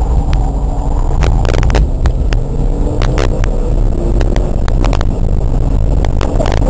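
Car engine and road noise heard from inside the cabin: a steady low rumble with a faint shifting engine note, broken by frequent sharp clicks and rattles.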